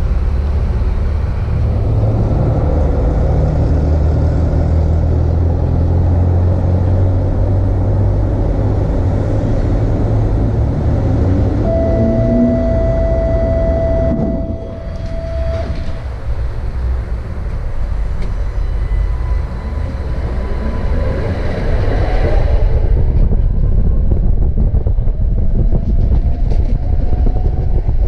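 Electric tram standing with a steady low hum. A steady beep sounds for about four seconds just before halfway. The tram then pulls away, its motor whine rising in pitch and the running noise getting louder near the end.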